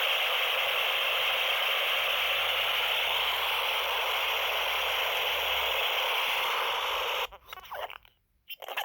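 A 2001 re-release Furby's speaker glitching, putting out a loud, steady static-like hiss that cuts off suddenly about seven seconds in, followed by short choppy bursts of garbled sound. The glitch comes from interrupting the toy's battery power.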